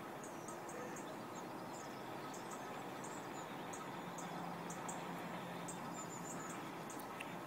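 Small birds chirping, short high chirps repeated irregularly, over a steady background hiss. A faint low hum comes in about halfway through.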